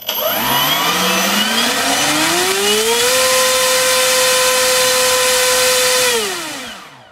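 NTM Propdrive 3842 1300kV brushless motor driving an 8x8 APC propeller on a 4-cell LiPo in a full-throttle thrust run. The pitch rises as it spools up over about three seconds, holds steady for about three seconds, then falls as it winds down near the end.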